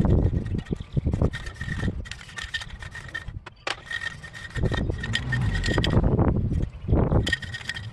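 Aerosol spray-paint can hissing in short bursts over wind buffeting the microphone, with the gusts rising and falling in loudness.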